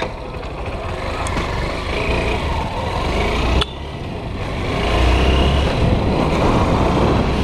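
Honda motorcycle's engine running as it rides down a street, heard from the rider's seat. The sound drops suddenly a little past halfway, then builds again as the bike speeds up.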